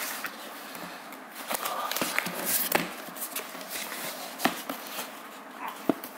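Rustling and crinkling of a black plastic packaging bag as hands handle and crumple it, with scattered small clicks and taps.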